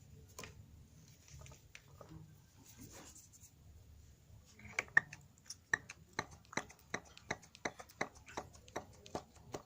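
Primer bulb on the carburettor of a four-stroke brush-cutter engine being squeezed over and over to draw fuel through and push out the air. Faint handling noises at first, then from about five seconds in a steady run of sharp clicks, roughly three a second.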